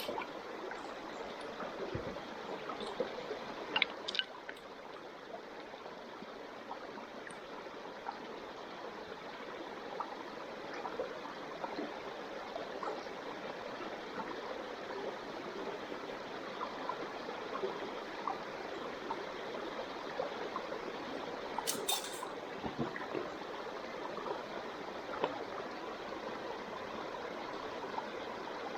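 Wood fire crackling steadily, with a few sharper pops.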